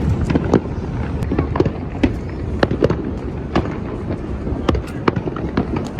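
Fireworks going off: a string of sharp bangs and pops at irregular intervals, several a second at times.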